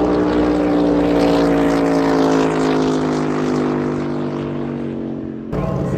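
Ski race boat engine running hard at speed, its pitch falling slowly as it passes and draws away. About five and a half seconds in the sound cuts off suddenly and another engine's steadier note takes over.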